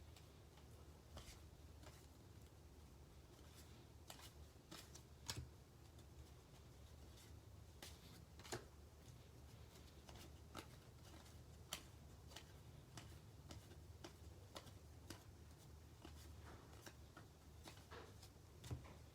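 Faint handling of trading cards: scattered soft clicks and taps over a low steady hum.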